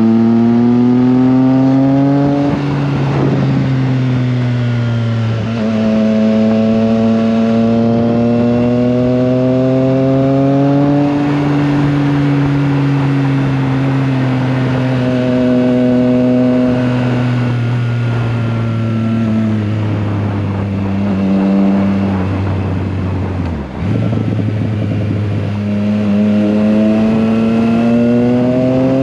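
Triumph Trident 660's inline three-cylinder engine under way on the road: revs climb and drop sharply at gear changes, ease down slowly as the bike slows, then climb steadily again near the end.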